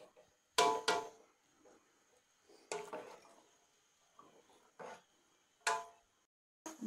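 Metal cooking pot clanking: four sharp knocks spread over several seconds, each ringing briefly with a metallic tone.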